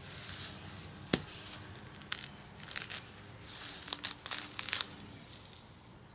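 Weed puller working in garden soil to pull up lesser celandine: soil and roots crackling and tearing and leaves rustling in short scattered bursts, with a sharp click about a second in.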